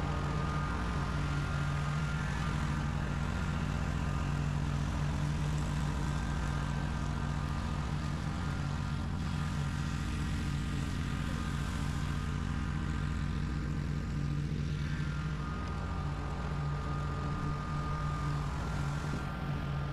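Dixon zero-turn riding mower's engine running steadily at mowing speed as it cuts tall grass, a constant drone with a faint higher whine above it.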